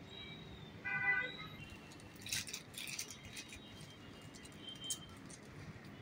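Clear plastic packaging bags crinkling and rustling in short crackly spells as they are handled. A brief pitched tone sounds about a second in.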